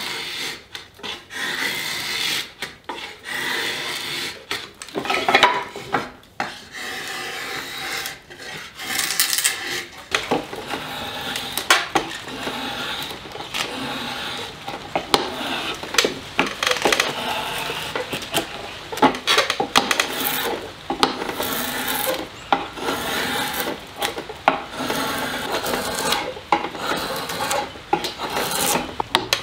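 Drawknife shaving a wooden barrel stave clamped in a shaving horse: repeated scraping pulls as curled shavings peel off the wood, with occasional sharp clicks between strokes.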